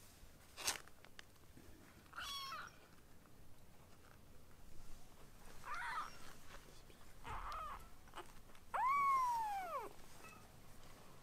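Weaning-age tabby kitten mewing: four high mews spread out, the last the loudest and longest, rising and then falling in pitch. A sharp click comes about a second in.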